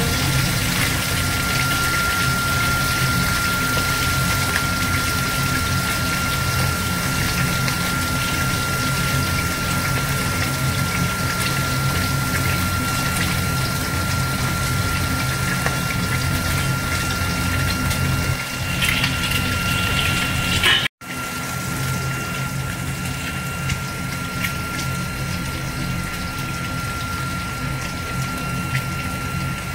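Pieces of katla fish frying in hot oil in a steel kadai: a steady sizzle over a steady hum. The sound cuts out for an instant about two-thirds of the way through.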